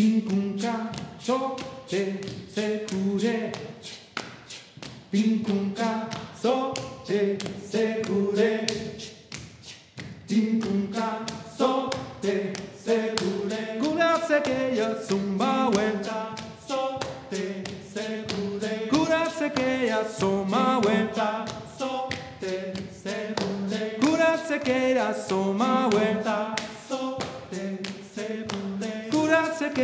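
A small group of voices singing an improvised a cappella circlesong, with layered, repeating vocal parts over a steady rhythm of hand clapping.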